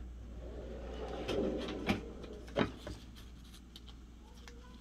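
Soft handling noises of a heat-transfer carrier sheet and shirt being worked at an opened heat press, with two short sharp clicks about two and two and a half seconds in.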